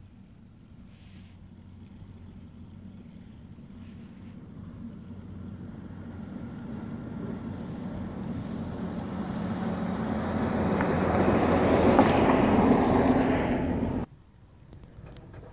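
Diesel engine and tyre noise of a DAF box truck approaching along the road and passing close, growing steadily louder to a peak about twelve seconds in, then cutting off suddenly.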